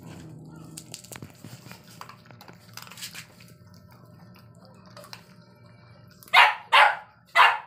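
Faint shuffling and licking of dogs on a concrete floor, then a dog gives three short, loud barks in quick succession near the end.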